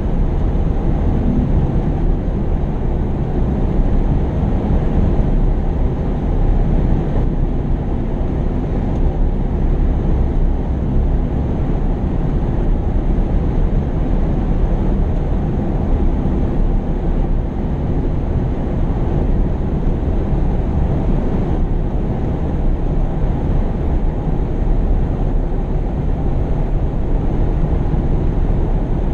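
Heavy construction machinery's engine running steadily, a loud, low-pitched drone with no clear revving or impacts.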